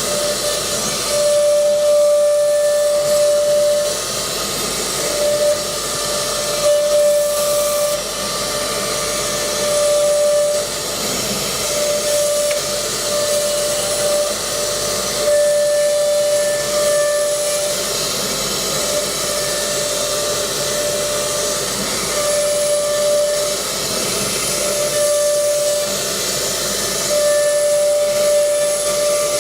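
High-speed four-spindle CNC router running, a steady high whine that cuts in and out every second or two over a constant loud hiss.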